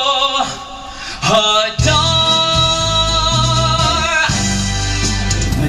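A man singing on stage, holding long notes with vibrato over a backing music track. The backing comes in fuller and heavier in the bass about two seconds in.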